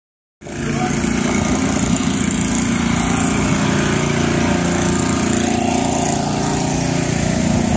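A small engine running steadily at one unchanging speed, a continuous drone.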